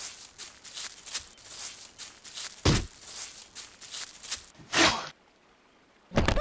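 A fast run of crunching and scuffing on dry leaf litter, broken by heavy hit sounds of a fight, loudest about two and a half seconds in and again near five seconds. The sound then cuts out briefly before a short falling-pitched sound right at the end.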